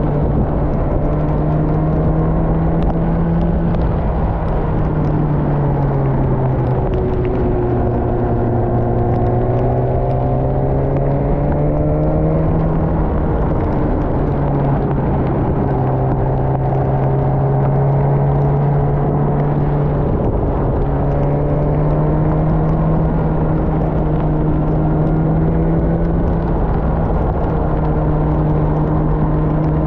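Motorcycle engine under way, heard from onboard the bike. Its pitch falls and rises again a couple of times as the bike slows for bends and speeds up. A steady low rush of wind and road noise runs under it.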